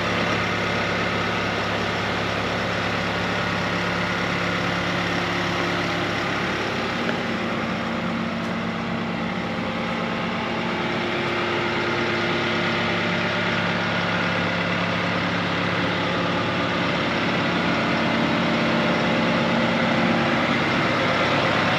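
Bobcat T66 compact track loader's diesel engine idling steadily, with a slight shift in pitch about seven seconds in.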